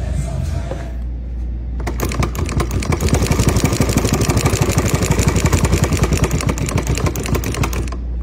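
Chain-stitch embroidery machine running fast: a rapid, even clatter of stitches starts about two seconds in and stops near the end, over a steady low hum.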